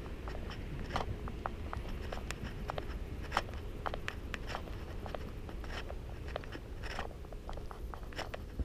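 Footsteps crunching while walking outdoors: irregular sharp clicks and crunches, several a second, over a steady low rumble.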